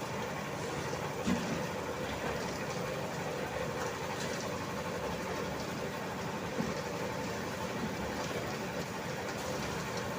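A construction machine's engine running steadily, with a brief knock about a second in.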